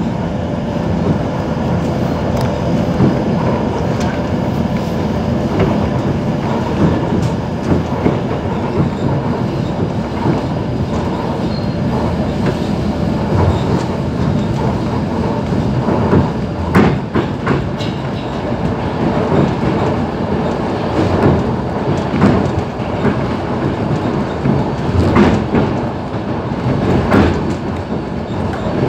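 ER9T electric multiple unit running at speed, heard from inside the carriage: a steady rumble of wheels on the track, with scattered clacks as the wheels pass over rail joints.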